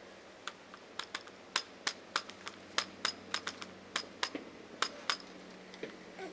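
Irregular sharp metallic clicks and clinks, about twenty in a few seconds, each with a brief bright ring, over a faint steady hum.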